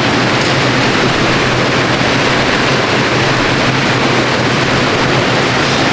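Air bikes' fans whooshing steadily as athletes sprint on them.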